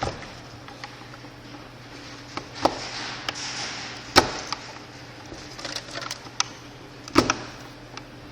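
A small screwdriver prying and scraping sticky glue off an e-bike battery's fuse holder: scattered sharp clicks and snaps, the loudest about two and a half, four and seven seconds in.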